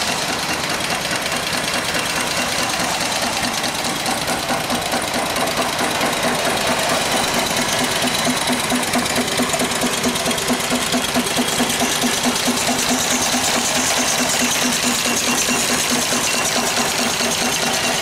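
Small single-cylinder steam engine running steadily on live steam from a coal-fired boiler: a fast, even mechanical beat with steady steam hiss over it.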